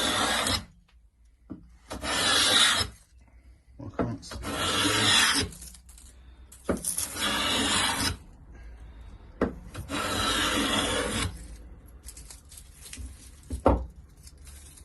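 Hand plane with a freshly sharpened iron shaving wood in about five strokes, each a second or so of rasping hiss with short pauses between. A single sharp knock comes near the end.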